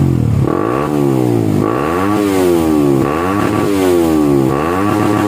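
Suzuki GSX-R150 single-cylinder engine through its stock muffler with the internals gutted ("bobok"), revved in quick throttle blips, its pitch climbing and falling about once a second. The revs shoot up with only a small twist of the throttle.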